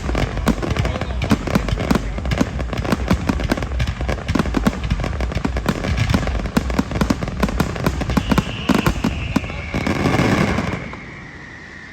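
Fireworks crackling: a dense, rapid run of pops and bangs for about ten seconds, ending in a louder rushing burst that stops suddenly.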